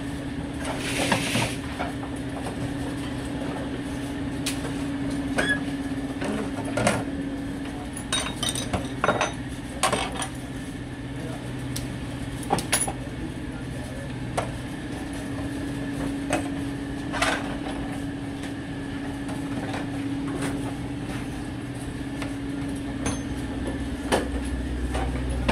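Workshop of hand injection molding machines: a steady machine hum, broken by irregular metallic clinks and knocks of the lever presses and steel molds being worked, with a brief hiss about a second in.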